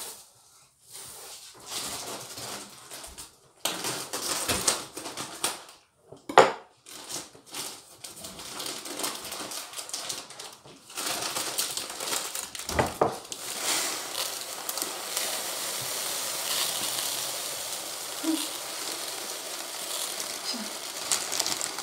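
Plastic bag of rice rustling and being handled, with a sharp knock about six seconds in and another a little before halfway, then dry rice grains pouring from the bag into a plastic storage container as a steady, fine hiss.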